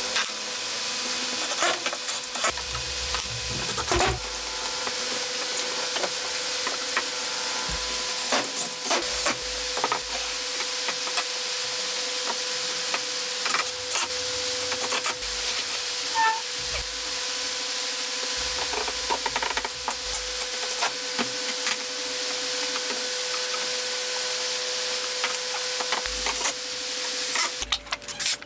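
Woodworking handling sounds in a workshop: scattered clicks, knocks and low thumps of wooden frame pieces and tools being set down and moved, over a steady hiss and a steady hum that stops near the end.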